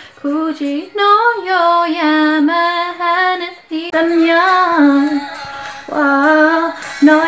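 A young woman singing snatches of songs solo, with no accompaniment. Her phrases are made of held and sliding notes, broken by short pauses.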